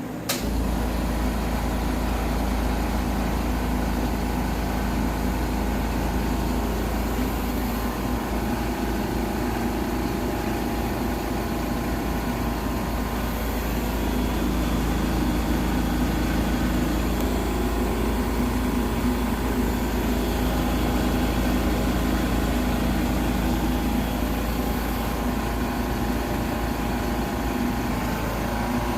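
Compact 5-axis CNC tool grinder running, a steady mechanical hum with several steady tones that cuts in suddenly just after the start.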